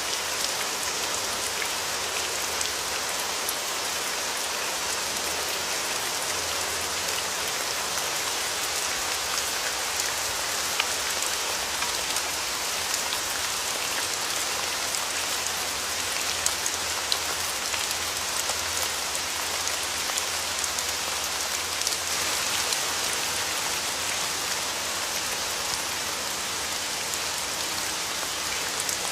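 Steady rain falling, a dense even hiss with many individual drops ticking on a surface.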